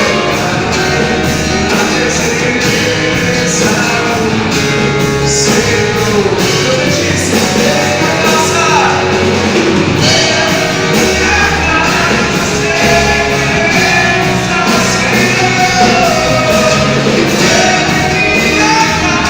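Live gospel band playing, with a singer and a full rock-style backing.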